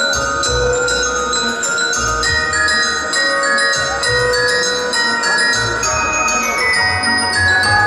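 Festive show music: many bells and chimes ringing over a pulsing bass line.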